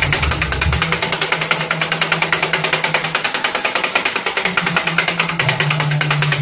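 Kottu roti being chopped on a flat iron griddle with metal blades: a rapid, steady metallic clatter of many strikes a second.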